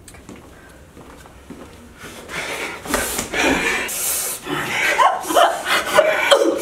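Heavy breathing and gasps from people struggling at close range, starting about two seconds in, with short pitched vocal cries joining later.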